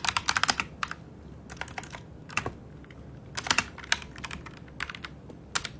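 Typing on a keyboard: short runs of quick key clicks with pauses between them, the densest run right at the start and single clicks scattered later.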